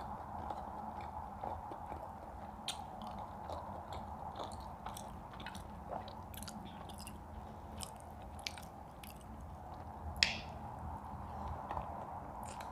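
Close-up eating sounds: chewing with many small, irregular mouth clicks and smacks, and one sharper click about ten seconds in, over a steady low background hum.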